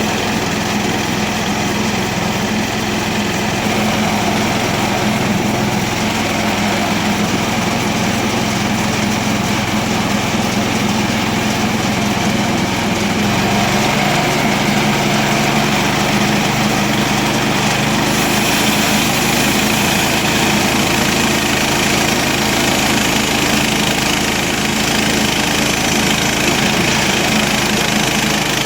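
Small gasoline engine of a Harbor Freight portable bandsaw sawmill running steadily while the band blade cuts through a green, freshly felled elm log. The engine's low note shifts about halfway through.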